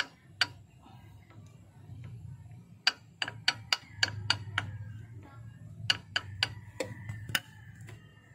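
Sharp metallic clicks of a hand tool being worked on a bolt at the engine's timing end: one click near the start, then two quick runs of about four clicks a second, over a steady low hum.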